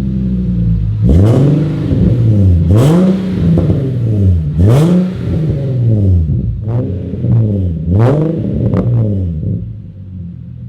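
Infiniti G37 sedan's 3.7-litre V6 revved repeatedly in free rev through a newly installed ISR single-exit GT exhaust and Y-pipe: a series of blips, each rising and falling, then dropping back to a steady idle near the end.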